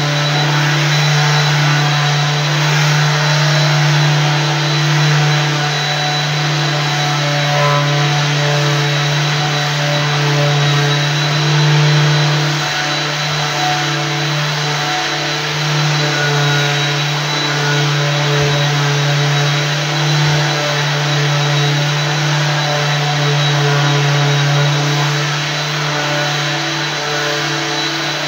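Floor sanding machine running steadily: a constant low motor hum with a thin high whine over a rushing noise.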